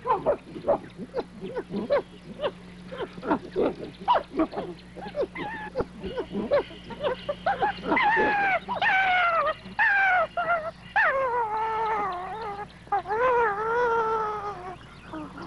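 Chimpanzees calling in a fight over bananas. A quick run of short grunts and barks comes first. From about halfway it gives way to long, wavering screams that rise and fall in pitch.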